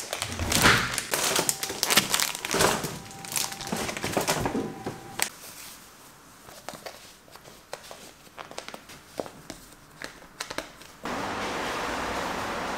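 Crinkling and rustling of plastic packaging and a wet cleaning sheet being handled and fitted onto a flat-head mop, with scattered clicks. About eleven seconds in a steady hiss starts abruptly.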